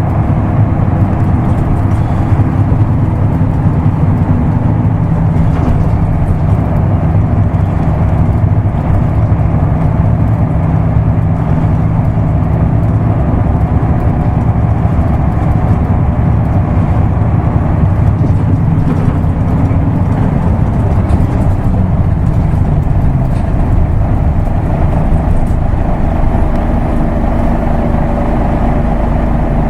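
Isuzu Erga Mio manual-transmission bus's diesel engine running while under way, heard from inside the bus. The engine note holds steady, then changes about two-thirds of the way through and settles at a different pitch near the end.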